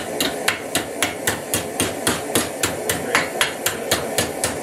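Hand hammer striking metal held in a bench vise in quick, even blows, about four a second.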